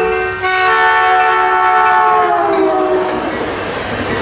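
Caltrain horn sounding a long blast from the approaching train. It starts about half a second in and its chord drops in pitch as the train passes, ending around three seconds in. Then comes the rushing rumble of bi-level passenger coaches going by on the rails.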